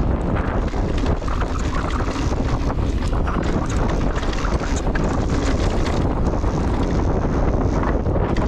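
Wind buffeting the microphone on a mountain bike ride down a dirt trail: a steady low rumble with many small clicks and rattles from the bike and tyres running over the ground.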